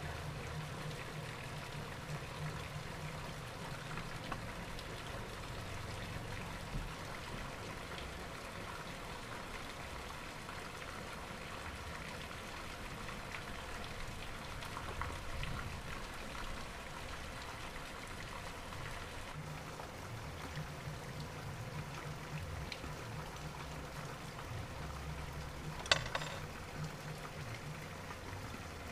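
Steady background hiss with a low hum that comes and goes and a few faint taps of brass being handled. Near the end, one sharp snip as cutting pliers cut through the thin brass strip.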